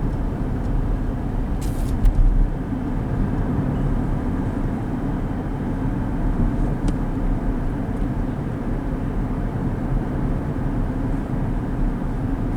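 Steady low rumble of a car running, with a short sharp click about two seconds in.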